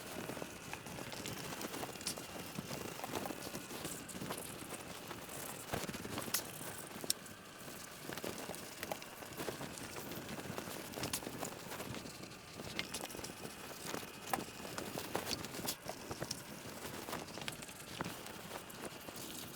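A microfiber cloth wiping down a motorcycle's bodywork with degreaser: faint continuous rustling with scattered small taps and clicks of handling.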